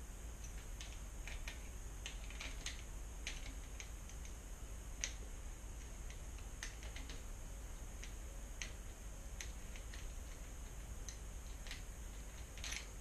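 Irregular small clicks and ticks of hands fitting bicycle shifter parts, over a steady low hum.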